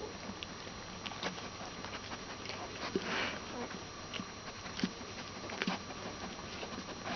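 Newborn Broholmer puppies nursing at their mother, with the mother's head down among them: scattered soft wet clicks and smacks from suckling and licking, and a brief rustly snuffle about three seconds in.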